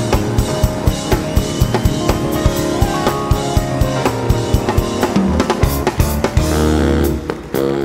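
Drum kit played in a busy groove, with rapid bass drum, snare and rimshot strokes, over the live band's bass and other instruments. Near the end the drum strokes thin out.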